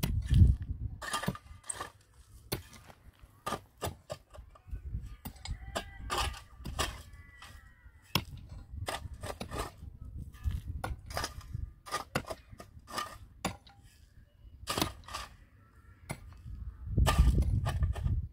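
Irregular sharp knocks and taps, some loud, some faint, a few each second with short gaps between. A low rumble comes in briefly at the start and again near the end.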